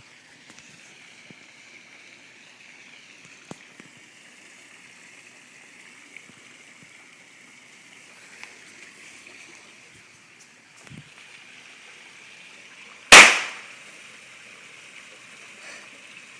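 A single firecracker goes off with one loud, sharp bang about 13 seconds in, the report dying away within half a second, over a faint steady hiss.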